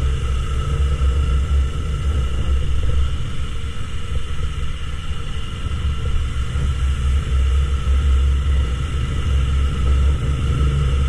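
Yamaha YZF-R3 parallel-twin engine running at a steady cruise under way, mixed with heavy wind rumble on the rider's camera microphone.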